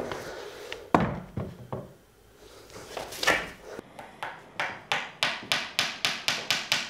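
A hammer driving a nail into the wall: a quick, even run of about ten sharp strikes, about four a second, starting a little past halfway. Before it, a few knocks and a loud thump, the loudest sound here, as a framed painting is handled.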